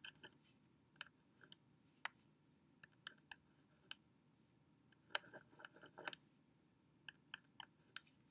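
Faint scratches and taps of a pen writing on paper, in short separate strokes, with a denser run about five to six seconds in.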